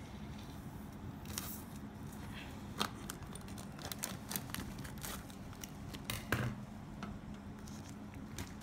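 Crinkling and handling of a water-filled plastic bag in a plastic tub, heard as scattered light clicks and crackles, with the bag being snipped by scissors.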